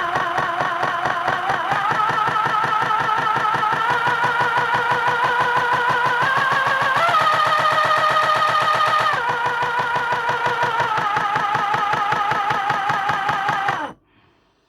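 Tamiya CC-01 RC car drivetrain running: an electric motor and gears whining over a fast rattle. The speed steps up in stages, drops back in two steps and stops abruptly near the end.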